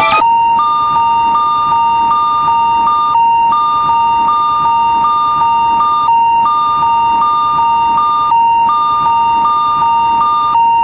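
Japanese railroad crossing (fumikiri) electronic warning bell ringing continuously in a steady, repeating two-tone pattern.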